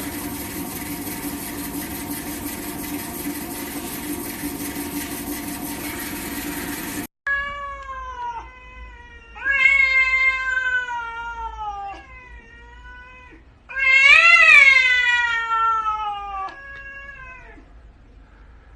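Cat giving several long, drawn-out meows, each sliding down in pitch, the last one the loudest. Before them, a steady noisy hum cuts off abruptly about seven seconds in.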